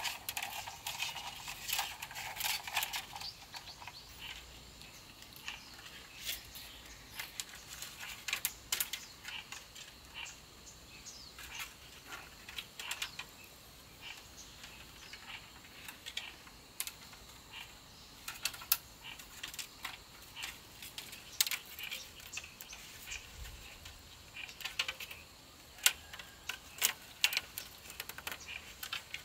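Thin bamboo strips being split and woven by hand into a fish trap, giving irregular light clicks, ticks and scrapes as the strips flex and knock against each other.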